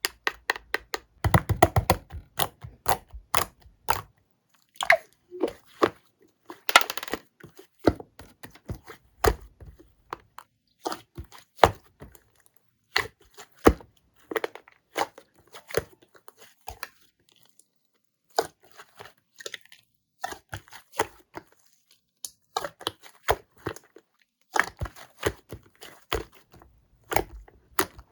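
Slime being pressed and squeezed by hand, giving irregular sharp clicks and small crackling pops in clusters, with short pauses between them.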